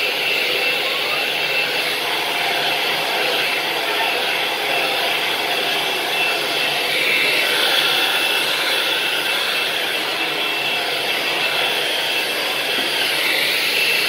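Handheld hair dryer running steadily, a rush of air with a thin, steady high whine, blowing wet acrylic paint across a canvas.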